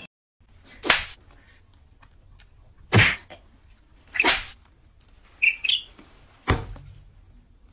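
Baby monkeys calling: a string of short calls spaced a second or two apart, with a quick double squeak just past the middle.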